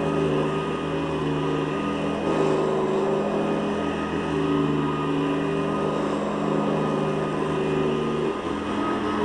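Hoover Guardsman commercial upright vacuum cleaner running steadily while vacuuming carpet, its motor hum stepping slightly in pitch twice.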